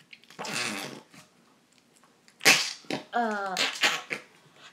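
Store-bought fart putty squeezed in its small plastic tub, pushing air out in several short fart noises, a couple of them with a wavering pitch.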